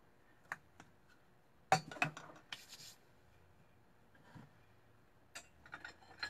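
Tea things being handled: a few light clicks, then a louder clink-and-knock of a cup or teapot being set down about two seconds in, a brief hiss, and a few small taps near the end.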